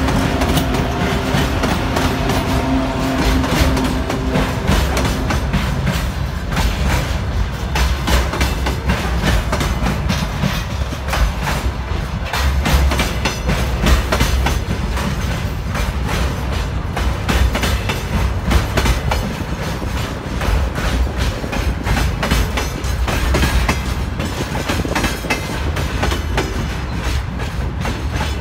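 Freight train passing close by. For the first four or five seconds the V16 diesel engine of the 2TE116U locomotive's rear section drones as it goes past. Then container flat wagons roll by with a steady rumble and continuous clickety-clack of wheels over rail joints.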